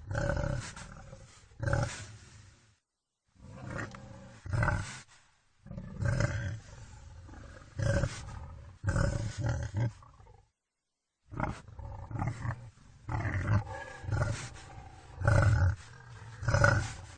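Wild boar grunting: a run of short, loud, rough grunts about every second or two, with two brief dead-silent breaks, about three seconds in and again around ten seconds.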